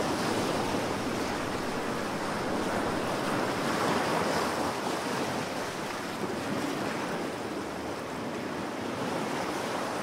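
Steady wash of ocean waves and surf, swelling a little about four seconds in.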